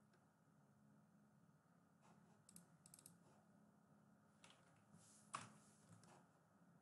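Faint computer mouse clicks and keyboard key taps, scattered and sparse, the loudest a single click about five seconds in, over a low steady hum of room tone.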